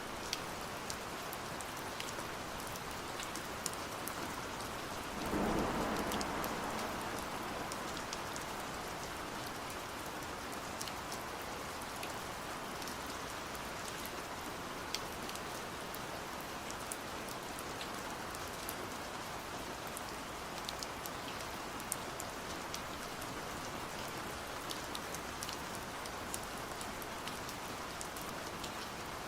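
Steady rain falling, with scattered sharp ticks of single drops. About five seconds in, a deeper, louder swell rises suddenly and fades away over a couple of seconds.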